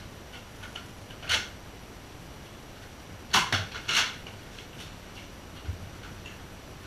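A few short rustling, scraping noises from people moving about and handling things in a small room: one about a second in and a close pair near the middle, with a faint low knock afterwards.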